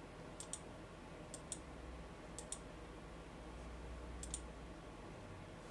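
Faint clicking of a computer mouse button: four press-and-release double clicks, the first three about a second apart, the last after a longer gap.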